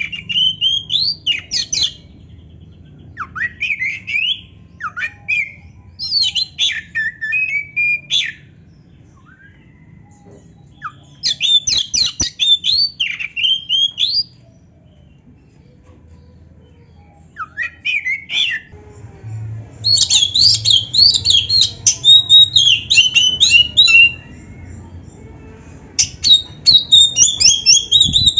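Black-breasted oriental magpie-robin (kacer) singing in bouts of fast, varied, high sweeping whistles and harsh notes, with pauses of a second or more between bouts.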